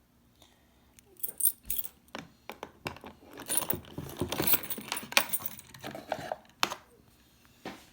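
Small hard objects jingling and clattering as they are handled, in irregular bursts of clinks from about a second in to near the end, the busiest in the middle.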